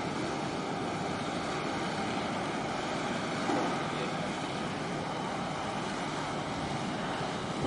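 Steady machinery drone of a large container ship passing close by, mixed with wind and water noise, with a brief louder swell a little before halfway.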